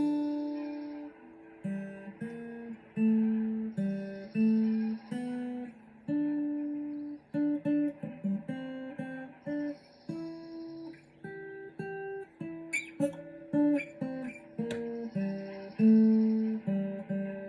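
Acoustic guitar played solo, picking single notes and chords in a slow, repeating pattern.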